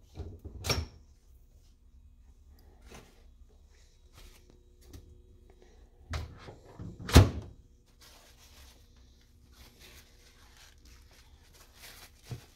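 Microwave door popping open with a sharp clack, then kitchen handling knocks, the loudest a single thunk about seven seconds in and a lighter knock near the end, over a faint steady hum.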